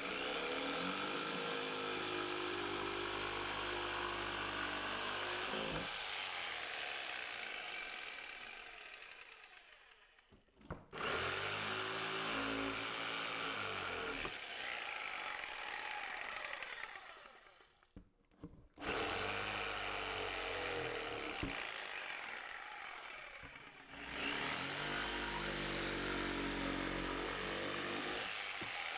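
Corded jigsaw cutting through an OSB-topped subfloor panel, running steadily in three stretches; each time it slows and fades before the saw is started again.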